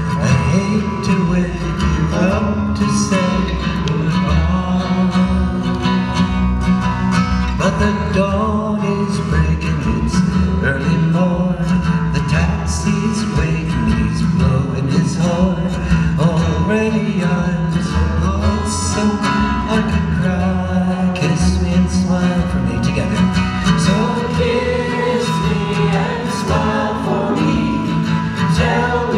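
Live folk song: acoustic guitar strummed with a steady low bass line from a washtub bass, and voices singing.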